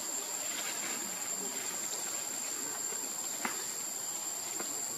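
Insects droning with a steady high-pitched whine, with a couple of faint clicks near the end.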